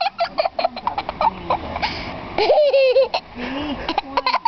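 A young girl giggling and laughing in quick short bursts, with a longer pitched laugh about halfway through.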